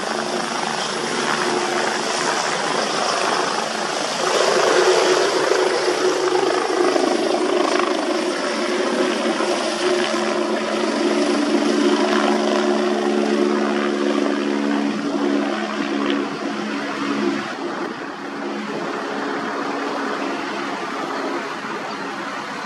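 Twin-turbine air-ambulance helicopter taking off: steady rotor and turbine noise that grows louder about four seconds in as it lifts from the helipad, with a steady whine, then drops off over the last few seconds as it climbs away.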